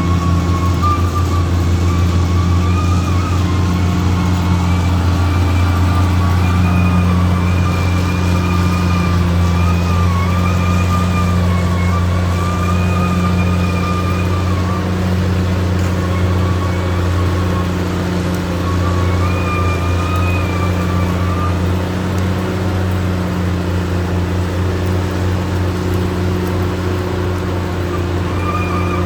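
Caterpillar D6R XL bulldozer's diesel engine running steadily, with a deep hum and a wavering high-pitched whine over it that fades out and returns a few times.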